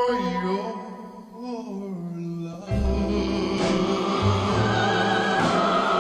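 1950s pop ballad record for vocal with chorus and orchestra. A held sung note dies away into a brief quieter passage, then the full orchestra and chorus come back in with the bass about two and a half seconds in.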